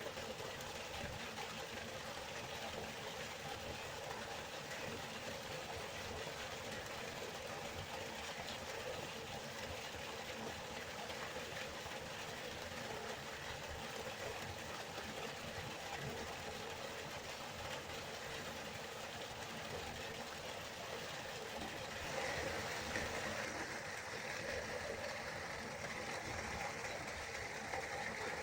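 River water flowing and rushing steadily, a little brighter and louder from about two-thirds of the way in.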